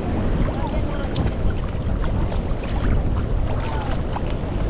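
Wind buffeting the microphone, with sea water lapping and splashing against a camera held at the water's surface.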